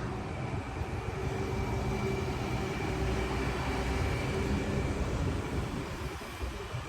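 A vehicle running steadily, a low rumble with a faint whine, swelling a little in the middle and easing near the end.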